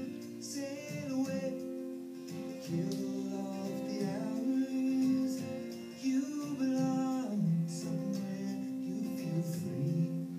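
Music with singing: a voice carries a melody over steady held accompanying notes.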